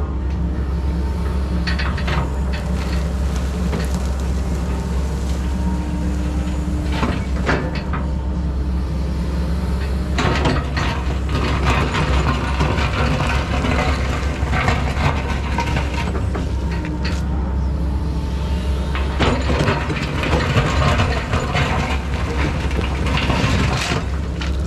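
Kobelco SK140 excavator's diesel engine running steadily under work. Scattered knocks, scrapes and crackles come from the machine working through the ground and branches.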